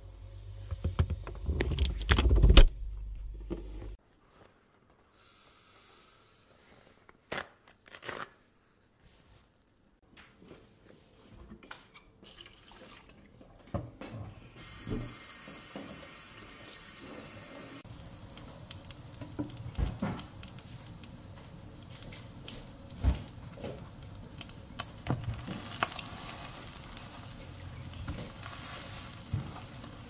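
Kitchen handling sounds. There are knocks and clatter near the start. Later a tap runs into a stainless steel sink for a few seconds while a glass jar is washed by hand, with scattered clinks and taps throughout.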